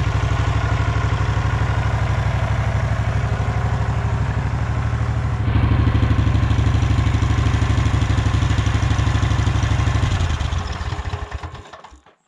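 Husqvarna Rider 1200 riding mower's engine idling steadily, then switched off about ten seconds in and running down to a stop over the next two seconds.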